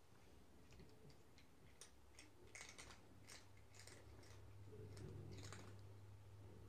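A cat crunching pieces of dry kibble: faint, scattered crisp clicks.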